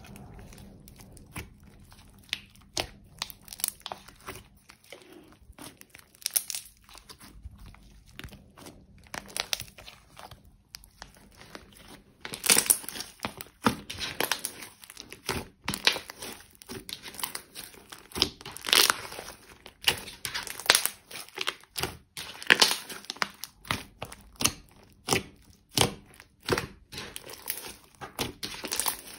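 Thick pink slime being kneaded, folded and stretched by hand, giving many short sticky clicks and pops. They are sparse at first and become denser and louder about twelve seconds in.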